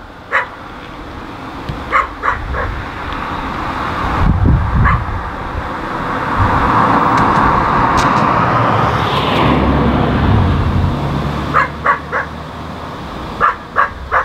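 A dog barking in short sharp barks, a few at a time, with an engine running and growing louder through the middle before easing off.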